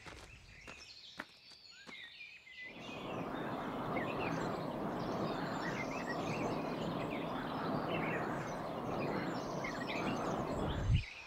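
Outdoor woodland ambience: a steady hiss of background noise with small birds chirping over it, starting about a quarter of the way in after a quieter stretch with a few faint clicks. A short low thump comes near the end.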